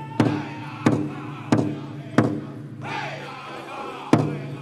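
Powwow drum group singing in chorus over a big powwow drum struck in a steady beat, about three beats every two seconds. Past the middle the drum stops for about two seconds while the singing goes on, then the beat comes back in near the end.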